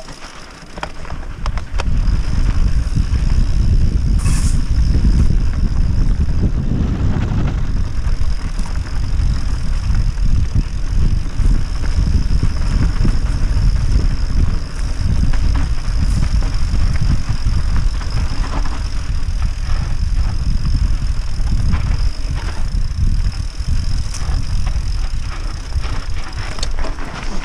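Wind rumbling on an action camera's microphone, with tyre noise from a mountain bike riding fast down a rocky dirt singletrack. The rumble comes up about two seconds in and stays steady.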